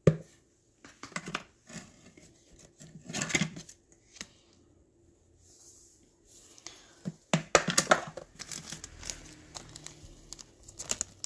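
Crinkling and tearing sounds of something being handled, coming in irregular bursts of sharp crackles, the busiest near the middle and about two-thirds of the way in.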